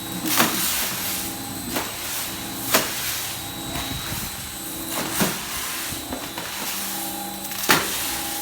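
A 20 kg drum coffee roaster running with a steady blower-and-motor hum. Sharp knocks come at irregular intervals, about five times.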